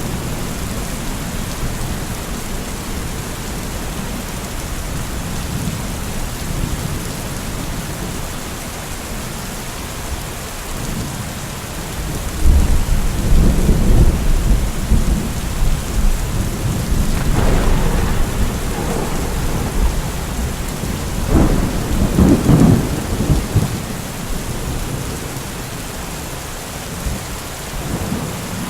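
Steady rain falling during a thunderstorm, with thunder rumbling: a deep roll swells up a little under halfway through, and a second, sharper peal comes past two-thirds of the way.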